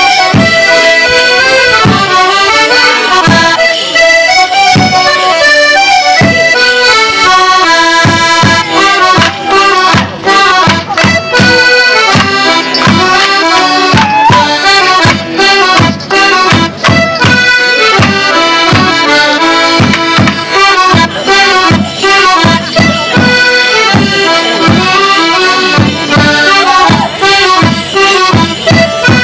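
Accordion-led folk band playing a lively Border Morris dance tune, with frequent sharp knocks and beats through it that come in quick runs around the middle.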